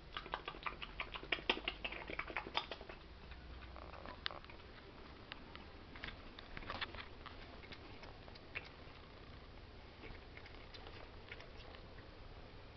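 A cat lapping liquid from a saucer: a quick run of small wet clicks for the first few seconds, then only scattered, fainter ones.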